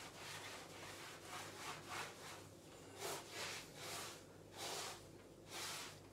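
A gloved hand wiping a wet sponge over a painted plaster wall in repeated swishing strokes, about one every half second to second and louder from about three seconds in: the wall being washed down with sugar soap to lift grease before painting.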